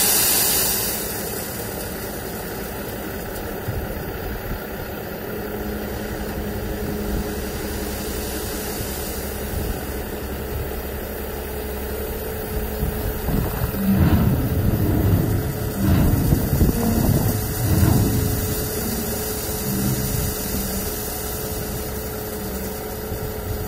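Dump truck's diesel engine running steadily while its raised bed tips out a load of gravel, with a steady whine. Louder rumbling surges come and go a little past the middle, for about five seconds.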